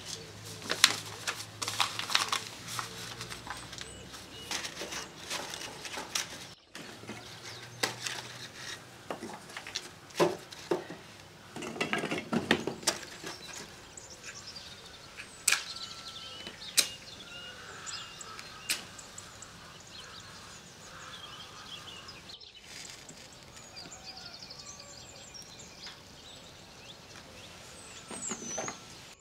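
Paper crinkling as it is crumpled, then dry scrap-wood kindling sticks clacking and knocking as they are stacked into a teepee on a metal tray, with a few sharp knocks. Birds chirp faintly in the background in the later part.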